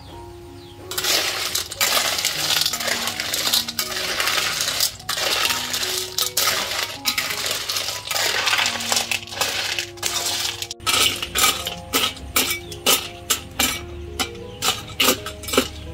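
Snail shells clattering and clinking against a steel wok as a metal spatula stirs them. The clatter starts about a second in, and in the second half it settles into regular strokes, about two a second.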